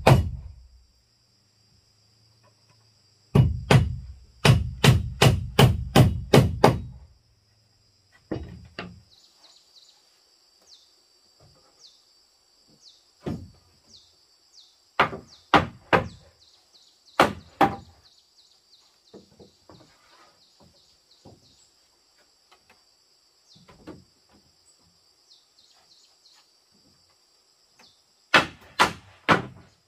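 Hammer driving nails into wooden planks: a quick run of about eight heavy blows a few seconds in, then scattered lighter knocks, and another run of blows near the end. A steady high drone of insects runs underneath.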